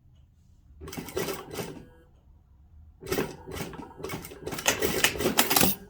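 Sewing machine stitching in two runs: a short one about a second in, then a longer, louder run from about three seconds in until just before the end.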